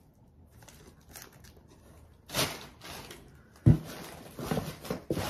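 Brown kraft-paper plant bag rustling and crinkling as it is handled, with a brief louder rustle a little past two seconds in. A single sharp thump, the loudest sound, comes about two-thirds of the way through, followed by more paper handling.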